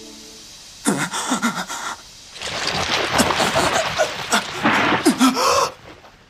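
Dense crackling rustle of an insect swarm pouring off a man's face, with a man's strained grunts through it: a short burst about a second in, then a longer stretch that cuts off near the end.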